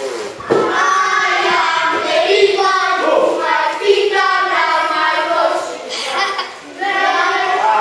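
A group of children singing together in unison, with a brief break about six and a half seconds in.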